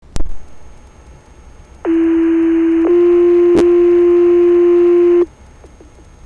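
Two-tone sequential paging alert over fire department radio: one steady tone held about a second, then a slightly higher, louder tone held about two and a half seconds. The tones set off the volunteer firefighters' pagers ahead of the dispatch call. There is a sharp click near the start and another in the middle of the second tone.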